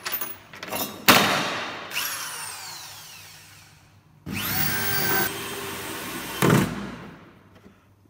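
Power drill driving screws into a wooden cabinet's side board in short runs, with knocks of wood around them. One run starts about a second in and winds down with falling pitch. A steadier run follows near the middle.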